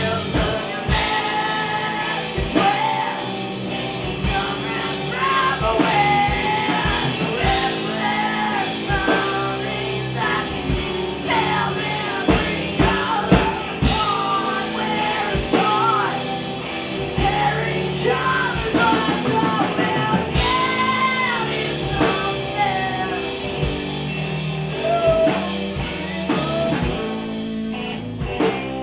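Live punk rock band playing: electric guitar, electric bass and a drum kit, with a lead singer's voice over them.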